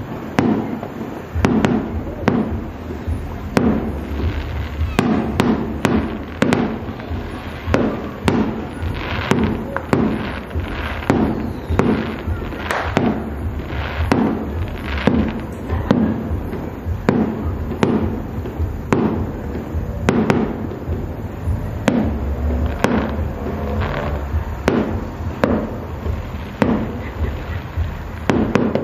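Aerial fireworks shells bursting in a continuous barrage: sharp bangs following one another irregularly, often less than a second apart, over a low rumble.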